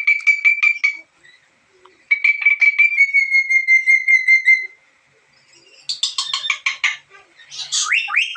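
Black-capped lory giving a run of odd whistled calls: rapid pulsed notes over a held whistle in two bouts, then a higher, harsher pulsed series about six seconds in, and quick rising squeaks near the end.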